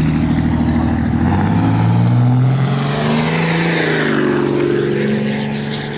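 Diesel pickup truck accelerating hard as it drives past, its engine note rising over the first couple of seconds. It is loudest about two seconds in, then eases and fades a little as the truck moves away.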